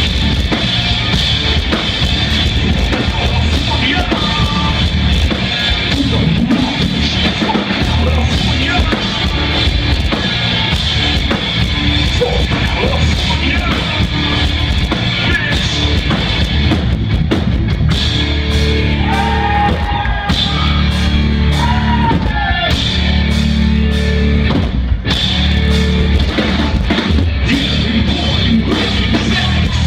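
Live rock band playing loudly, with a drum kit and singing, picked up on a phone's microphone in the crowd.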